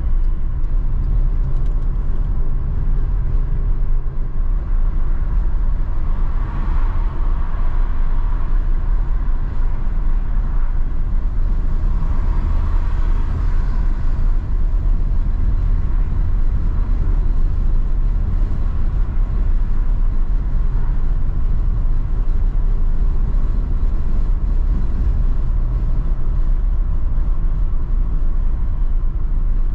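Steady low rumble of a car's engine and tyres driving at road speed, heard from inside the car. A hiss swells briefly twice, about seven and thirteen seconds in.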